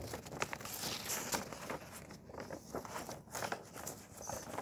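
Sheets of drawing paper rustling and crinkling as they are handled close to the microphone, a run of irregular crackles.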